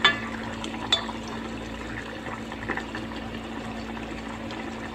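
Sponge gourd and shrimp curry simmering and bubbling in a stainless steel saucepan on a gas burner, over a steady low hum. Two sharp clicks, the loudest sounds, come at the start and about a second in.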